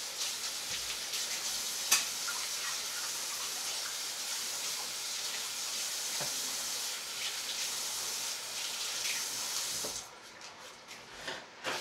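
Kitchen tap running water as something is rinsed under it, shut off about ten seconds in. A sharp knock sounds about two seconds in.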